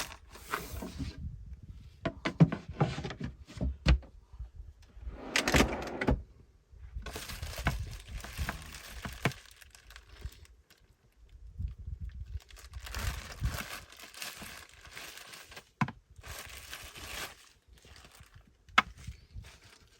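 Camping gear being rummaged through by hand: irregular rustling and shuffling with sharp knocks and clunks as items are moved and set down, a few of them louder, such as one about two seconds in and one near the end.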